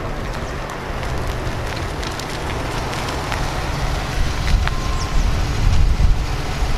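Wind buffeting an outdoor microphone: a loud, uneven low rumble under a steady hiss, with a few faint clicks.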